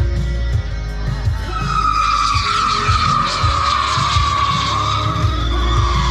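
Fireworks whistling: a loud, shrill whistle sets in about a second and a half in and slowly falls in pitch, over background music with a steady low beat.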